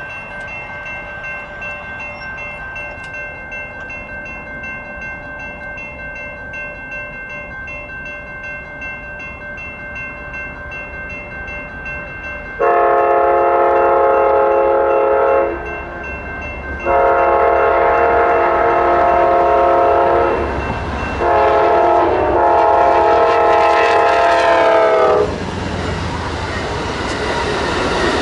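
Grade-crossing warning bell ringing steadily. About halfway through, the Amtrak Sunset Limited's locomotive air horn sounds three long multi-note blasts for the crossing. Near the end the train rumbles through the crossing with the clatter of wheels on rails.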